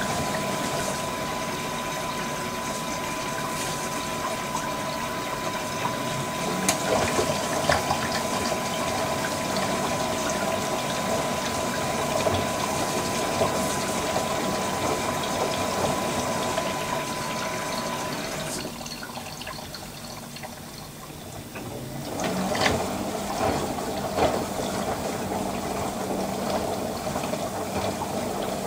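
LG front-loading washer-dryer filling with water for its final rinse: a steady rush of water coming in while the soaked duvet sloshes in the turning drum. About eighteen seconds in the inflow stops and it goes quieter for a few seconds, then the drum's sloshing picks up again.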